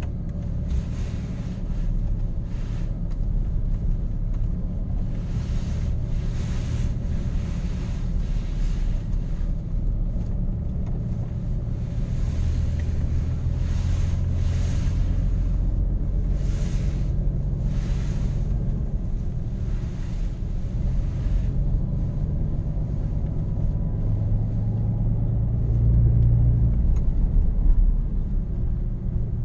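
Pickup truck running with a steady low rumble, with irregular short swells of higher-pitched noise over it through the first two-thirds and a louder stretch near the end.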